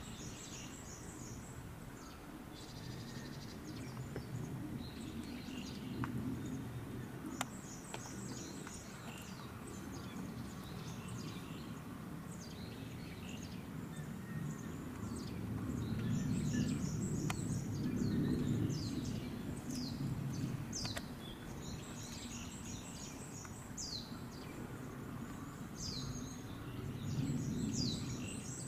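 Small birds chirping repeatedly: short high trills and quick downward-sweeping calls, over a low steady rumble of background noise that grows louder for a few seconds past the middle and again near the end.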